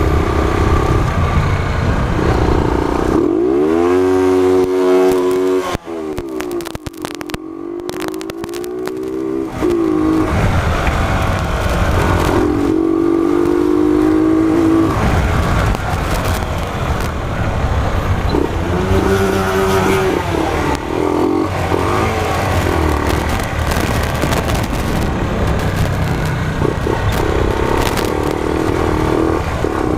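Honda CG 125's single-cylinder four-stroke engine revving hard while the motorcycle is ridden, its pitch climbing and dropping again several times as it accelerates through the gears. A brief clatter of sharp clicks comes about six seconds in.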